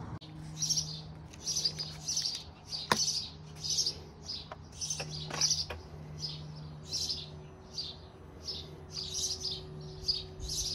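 A small bird chirping over and over, about two to three short high chirps a second, with a few sharp clicks partway through and a faint low steady hum underneath.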